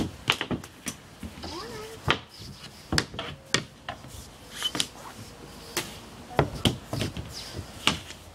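Hockey sticks clacking against a ball hockey ball and a plastic shooting pad, with shots striking a goalie's pads: a dozen or so sharp knocks spread irregularly.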